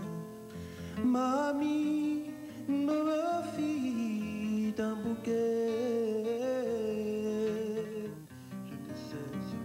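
A man singing live over acoustic guitar; his voice comes in about a second in with long held notes that slide between pitches.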